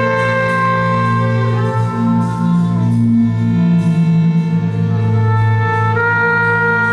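Live chamber ensemble music: trumpet and violins play a melody in sustained notes over a held low part, with a light ticking percussion beat.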